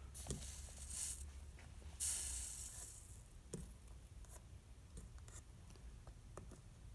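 Soldering iron melting solder onto the seam of a brass lamp vent cap, the flux sizzling in two short hisses: one just after the start and a louder one about two seconds in, with a few faint ticks.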